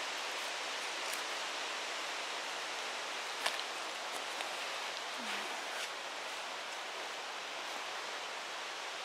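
Steady hiss of outdoor forest background noise, with a few faint clicks and rustles.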